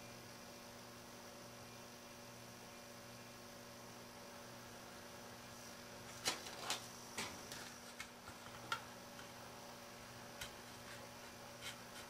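Steady low electrical mains hum, with a few short light taps and rustles about halfway through as a paper label is handled and pressed onto a metal control-panel faceplate.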